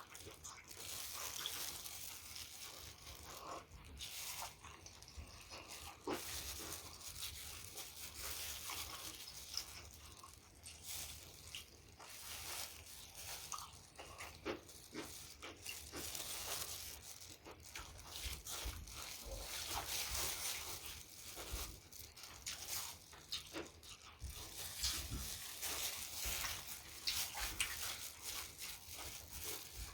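Close-up wet chewing and mouth sounds of someone eating, with many small clicks and smacks throughout.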